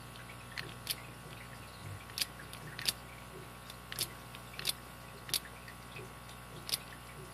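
Sharp metallic clicks of a lock pick being zipped across the pins of a vintage Master gun lock under tension, about eight separate clicks at irregular intervals.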